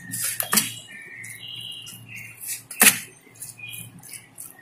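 A metal spoon scraping and clinking against a stainless steel bowl while mashing and mixing a soft, crumbly cheese-and-spice mixture; one sharp clink just before three seconds in is the loudest.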